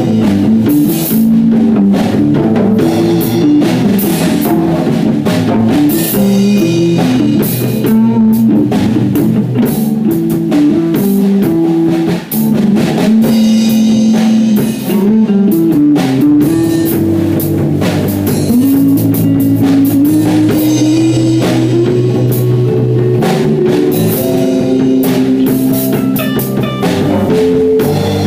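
A small rock band playing an instrumental jam: amplified electric guitar and a second electric stringed instrument over a drum kit with steady drum and cymbal hits.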